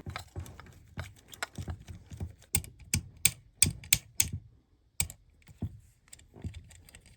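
Sharp, irregular metallic clicks from a rifle's freshly refitted Super Safety and its detent as the parts are handled and worked. The clicks are loudest and come two to three a second in the middle, then thin out.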